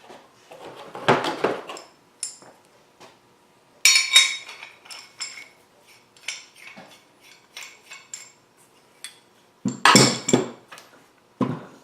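Steel sleeves and adapters of a ball-joint press kit clinking and clattering as they are handled and fitted together, with a ringing metal clink about four seconds in and a louder clatter near the end.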